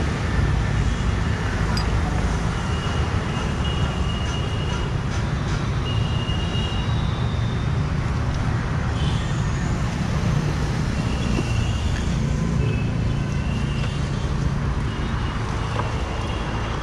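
Steady low rumble of road traffic, with a few faint, short high-pitched tones and light clicks over it.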